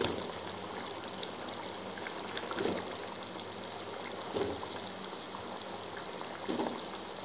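Tomato gravy bubbling steadily in a pan, with a few soft thumps about a second and a half apart as drumstick pieces are dropped in.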